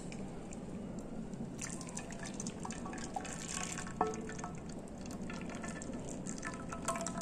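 Coconut water and agar agar mixture poured in a thin stream into a glass dish, trickling and dripping faintly, with one light knock about four seconds in.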